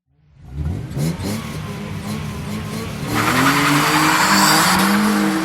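A street racing car launching hard: the engine revs up about half a second in, and from about three seconds in loud tyre squeal from wheelspin runs over the engine note.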